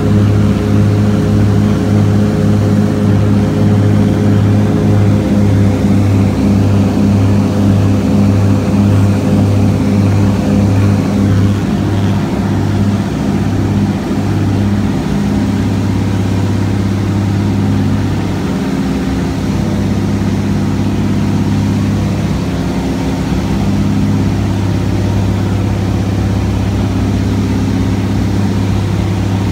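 Float plane's engine and propeller in cruise flight, heard from inside the cabin as a loud, steady low drone. It throbs with a regular beat through the first half, then settles into a more even drone from about halfway through.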